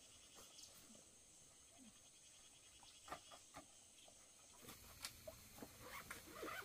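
Near silence with faint insects trilling, a rapid high pulsing, and a few soft clicks.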